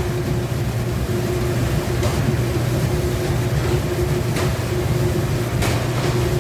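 Conveyor-type commercial dishwasher running, a steady machine hum with a low drone and a held tone, with three faint knocks spread through it.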